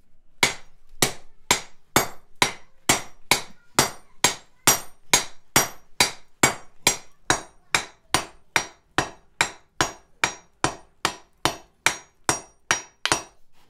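Hand forging: a smith's hammer striking a glowing hot bar on an anvil in a steady rhythm of about two blows a second, each blow with a short bright metallic ring, as the holdfast's shaft is worked toward round.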